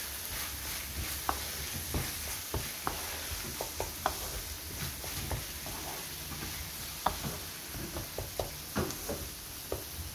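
Keema (minced meat) sizzling in a frying pan while a wooden spatula stirs it, with scattered scrapes and light taps of the spatula against the pan.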